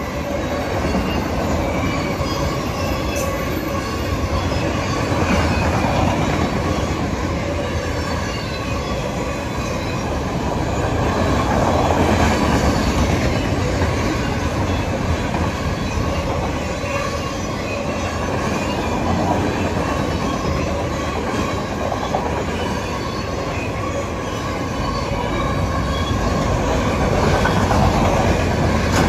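A train running past on the rails: a continuous running noise of wheels and cars that swells and eases several times, with faint steady high tones over it.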